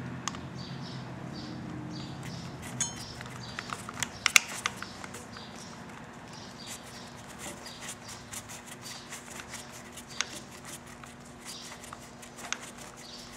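Light clicks, taps and scrapes of hands fitting the plastic throttle switch housing back onto a motorcycle handlebar and starting its screws, with a few sharper clicks about three to four and a half seconds in.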